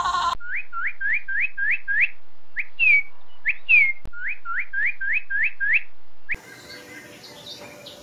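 Northern cardinal singing: runs of quick upslurred whistles, about six a second, broken in the middle by two longer downslurred notes. The song stops abruptly a little after six seconds in.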